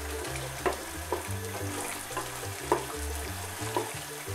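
Wooden spoon stirring thick risotto in a pan, with several sharp knocks of the spoon against the pan, over background music with a stepping bass line.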